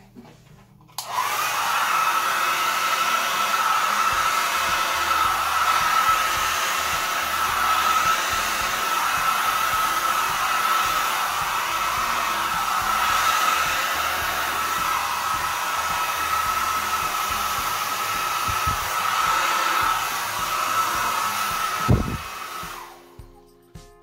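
Handheld hair dryer running: a steady rush of air with one constant whine, switched on about a second in and off near the end, with a short knock just before it stops. It is blowing wet acrylic pour paint outward into a bloom.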